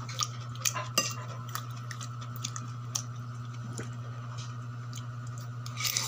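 Metal spoon clinking and scraping against a ceramic plate as food is scooped up, a few sharp clicks, the loudest about a second in, over a steady low hum.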